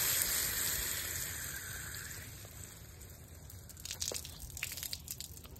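Garden hose spray nozzle spraying water onto a leafy hedge, the hiss fading away over the first few seconds. A few light clicks near the end.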